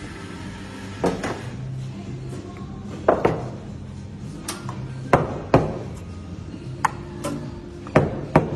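Sharp knocks and clinks of stainless-steel milk jugs and cups being picked up and set down on a wooden café counter, about ten irregular strikes, several in quick pairs. Steady background music runs underneath.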